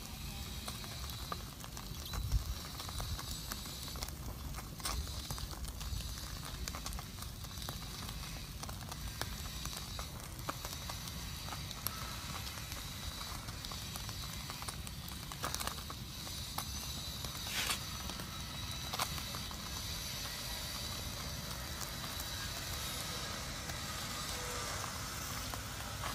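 Small wood fire crackling, with scattered sharp pops over a steady low rumble.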